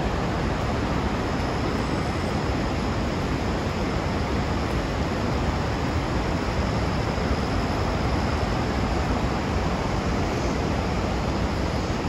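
Steady, unbroken rush of a large waterfall.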